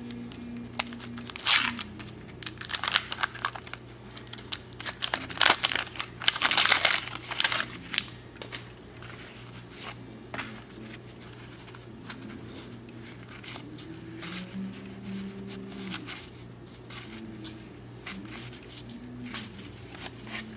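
A 1990 Donruss wax pack is torn open and its waxed-paper wrapper crinkled, in loud crackly bursts during the first seven or eight seconds. After that come quieter rustles and clicks of the pack's cards being handled.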